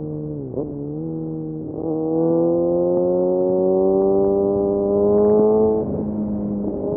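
Kawasaki Ninja ZX-6R inline-four engine running through an M4 exhaust with the dB killer removed. The revs dip briefly near the start; from about two seconds in the engine pulls, its pitch climbing slowly for about four seconds, then dropping near the end.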